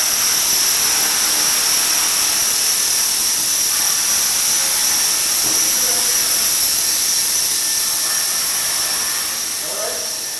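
Align T-Rex 450 SE electric RC helicopter hovering: a steady high-pitched whine from its electric motor and spinning rotor, easing off a little near the end.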